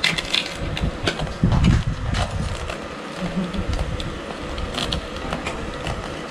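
Knife and fork clicking and scraping as they cut through the crackling skin of a deep-fried pork leg on its serving tray, with a steady hum underneath.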